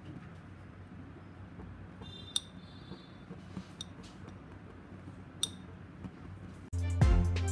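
A set drop of cooked jaggery syrup clinking against a ceramic bowl, about five sharp clicks, two of them louder with a short ring. The hard, glassy click is the sign that the syrup has reached the right texture for peanut laddu.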